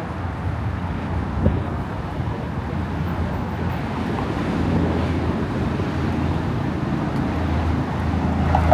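Steady low rumble of city street traffic, with one brief knock about a second and a half in.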